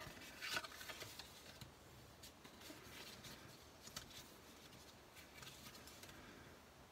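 Faint scraping of a bone folder rubbed along the score lines of cardstock to crease the folds, with light paper rustling; the scrapes are clearest about half a second in.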